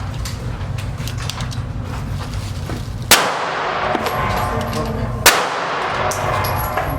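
Two gunshots about two seconds apart, each followed by a ringing echo.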